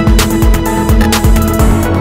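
Electronic background music with a steady drum beat and a held note.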